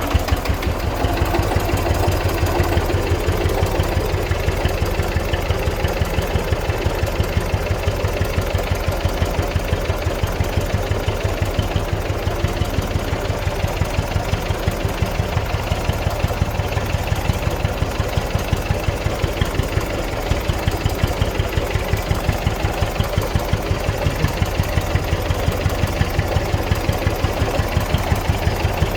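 Zetor 15's single-cylinder diesel engine running steadily, each firing stroke a distinct, evenly spaced beat.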